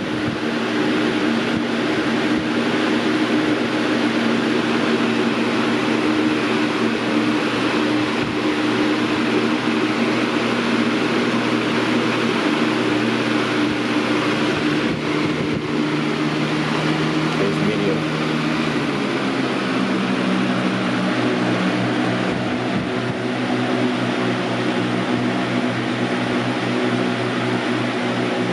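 Galaxy box fan, model 4733 from 2003–04, running on high: a steady rush of air over the motor's hum, with the fan's own 'whisper' sound. About two-thirds of the way in, the pitch of the hum shifts.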